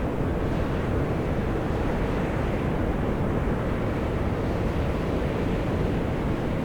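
Volcanic fumaroles at Mt. Io (Atosanupuri) venting steam, a steady deep rushing hiss with no breaks.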